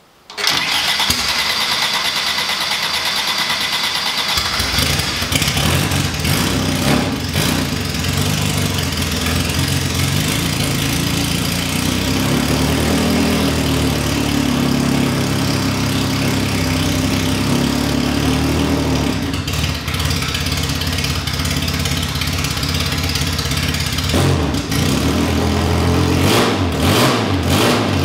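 Specialist Components 1293cc A-series race engine in a classic Mini, with no exhaust fitted, started for the first time from cold: it cranks over and catches about four seconds in, then runs and is revved repeatedly, free-revving and snappy, with a steadier idle stretch and quick blips of the throttle near the end.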